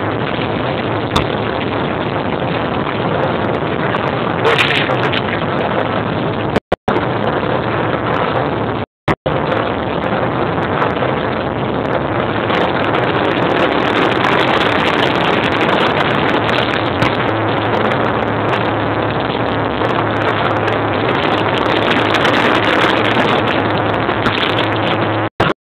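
Many motorcycle engines revving together as a 'motorcycle orchestra', a loud, dense, continuous engine noise that grows louder about halfway through.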